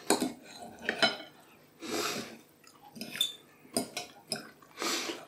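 Knives and forks clinking and scraping against a plate as roast chicken is cut. There are many short sharp clinks, and two longer scrapes about two and five seconds in.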